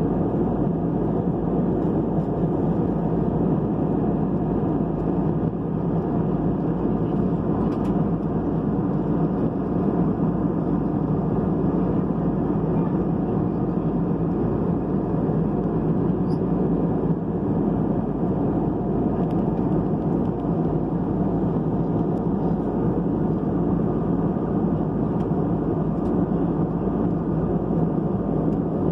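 Steady cabin noise of a passenger jet in cruise flight: the even rush of airflow and jet engines heard from inside the cabin by a window seat.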